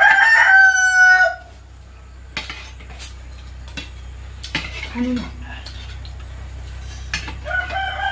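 A rooster crowing: one long call at the start, with a second starting near the end. Light clicks of cutlery on dishes in between.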